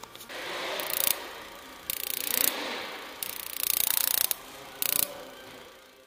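Handheld electric igniter sparking across the gap between two stripped copper wire ends, crackling in four bursts as the button is held, with a loud longer burst in the middle. The spark is judged too weak to light the pulsejet's gas.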